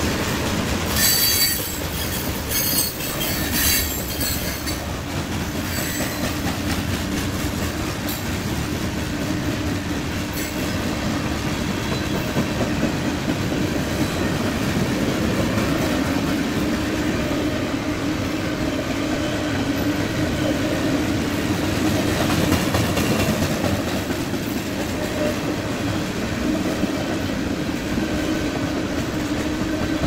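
Freight train cars, covered hoppers and tank cars, rolling past with a steady rumble and clatter of steel wheels over the rail joints. A few sharp metallic squeals and clanks come in the first few seconds.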